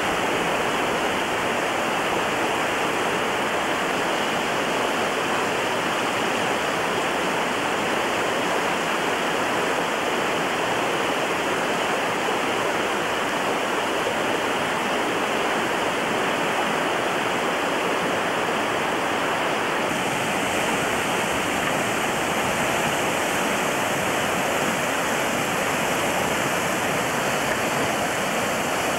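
Whitewater river rapids rushing steadily, an even, unbroken rush of water.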